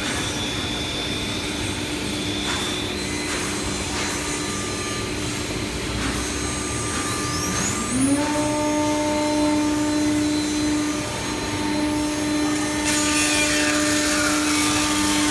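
CNC woodworking machining centre running with a steady hum. About eight seconds in, a motor winds up in pitch and settles into a steady whine, and from about thirteen seconds a hissy noise joins it.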